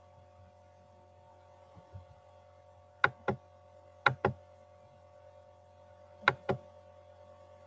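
Three pairs of sharp clicks, each pair a fraction of a second apart, over a steady electrical hum.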